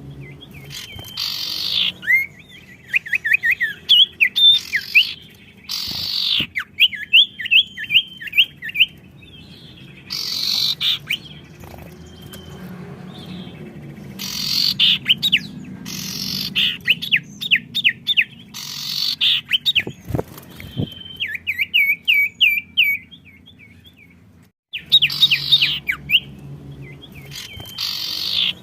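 Caged songbirds in full song, answering each other. Rapid trills of short chirps alternate with loud harsh bursts, in repeated phrases with short pauses between them.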